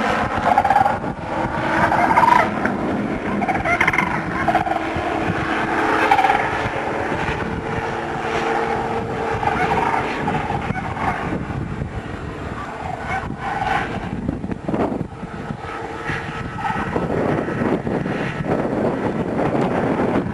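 Ultralight airplane engine running while a loudspeaker plays recorded whooping crane calls, repeated bugling notes over the engine sound. About two-thirds of the way in the calls fade and engine and wind noise dominate.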